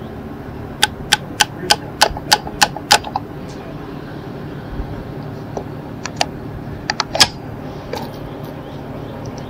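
Light metallic taps and clicks from the rifle's lower receiver being worked on by hand to deal with a trigger pin that is walking out. There is a quick, even run of about eight taps, roughly three a second, then a few scattered clicks and one sharper metal clack about seven seconds in.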